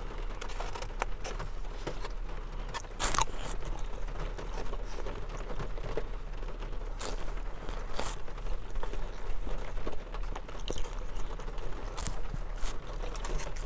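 Close-up eating sounds: chewing, with a plastic utensil scraping and clicking against a foam takeout container at scattered moments.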